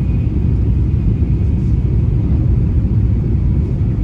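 Steady low rumble inside a Shinkansen bullet train carriage running at speed.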